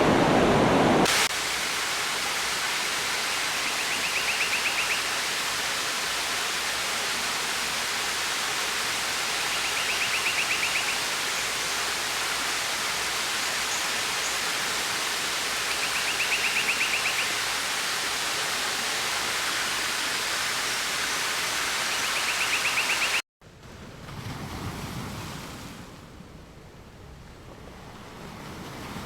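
Loud rushing water for about a second, then a sudden cut to a steady, softer rush of water. Over it a short buzzing trill comes back about every six seconds. Near the end it cuts out briefly, then gives way to quiet, slow swells of surf washing in.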